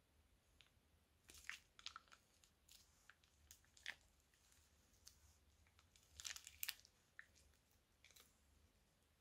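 Quiet, scattered sticky crackles and clicks as thick slime is squeezed out of a plastic piping bag onto a layer of slime, with a louder cluster about a second and a half in and another a little past six seconds in.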